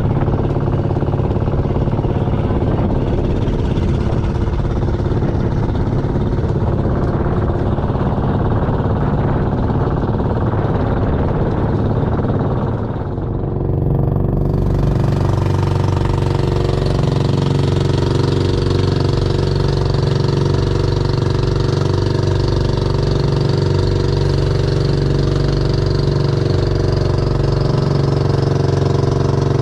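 Outrigger boat's engine running steadily under way, a low even hum with the rush of water and wind over it. About halfway through the sound dips briefly and comes back with more hiss of spray and wind.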